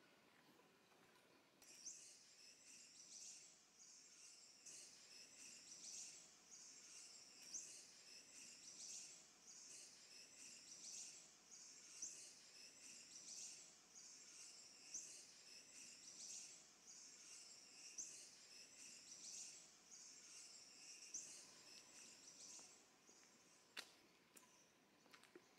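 A faint, high-pitched chirring call from a small animal in the forest. It pulses steadily about every second and a half, starts about two seconds in and stops a few seconds before the end. A few sharp clicks follow near the end.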